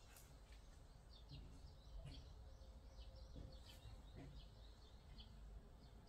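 Faint chirping of small birds: many short, high chirps scattered throughout, over a low steady rumble of outdoor background noise.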